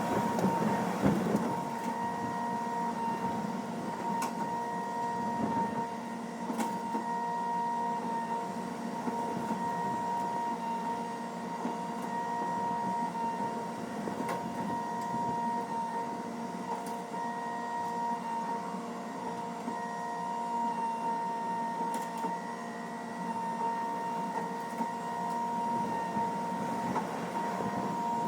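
An engine running steadily at a constant speed: an even mechanical hum that holds one pitch throughout, with a few faint clicks.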